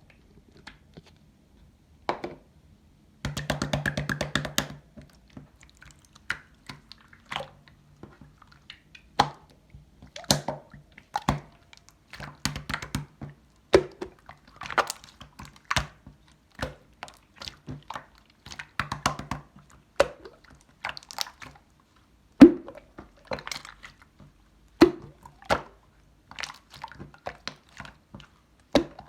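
Slime being squeezed and poked by hand: irregular wet pops, clicks and squishes, with a quick crackling run of clicks about three seconds in. A faint steady low hum sits underneath.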